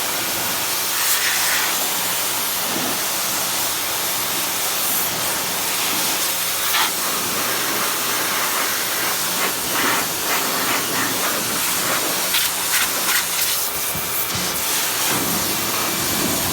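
A small pressure washer running steadily, its water jet hissing as it blasts a dirty toolbox, with a faint motor hum underneath.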